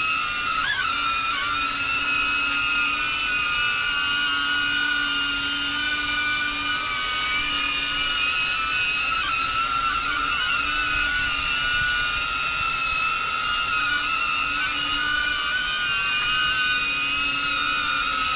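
DJI Avata FPV drone's propellers whining steadily as it flies, several high tones that flick up and down together now and then as the throttle is corrected.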